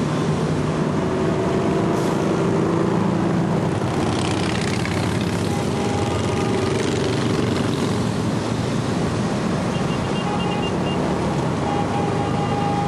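Steady din of a mass of motorcycles and traffic passing on the highway below, many engines and tyres blending into one continuous noise.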